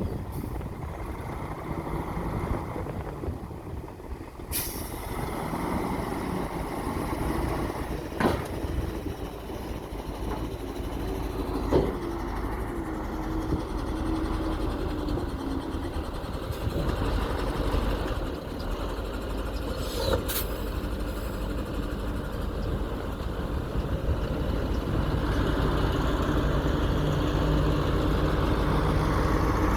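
Dump truck's heavy diesel engine running steadily, with a few sudden sharp sounds along the way. The engine grows louder over the last few seconds.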